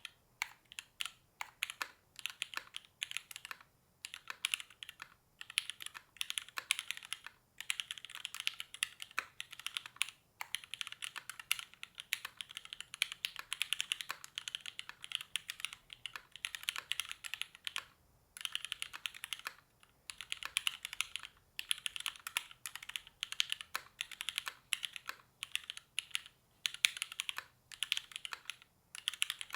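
Fast continuous typing on a Haus 65 mechanical keyboard with lubed vintage Cherry MX Black linear switches in an aluminium top-mount plate, keystrokes clicking in quick runs with brief pauses every few seconds.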